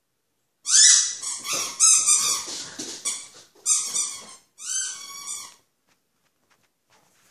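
An animal's high-pitched calls: about five drawn-out cries in quick succession, the first rising in pitch, then they stop.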